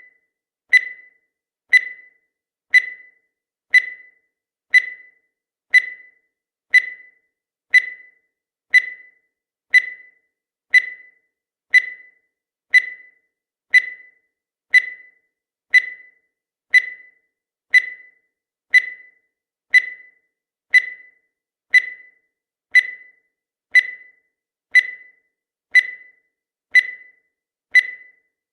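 Countdown timer sound effect: a short, high-pitched electronic blip once a second, marking each second counted down, steady and even throughout.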